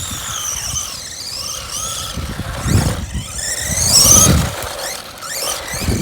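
Whine of a WLtoys A979 1/18 RC monster truck's 380 electric motor as it drives at speed, its pitch rising and falling with the throttle and peaking high about four seconds in, over low rumbling tyre noise.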